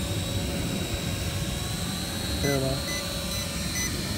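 Small quadcopter drone's propellers whirring, with a steady high whine. About two and a half seconds in, a beep starts repeating about twice a second.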